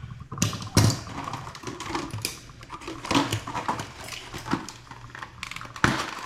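Irregular clicks, knocks and rustling of hands handling faucet cartridges, parts and packaging, with a sharper knock about a second in and another near the end.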